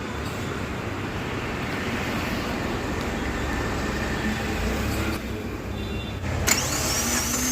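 Tata Indigo CS engine running with a misfire, an uneven low rumble. Near the end comes a sharp click, then a high, wavering whine.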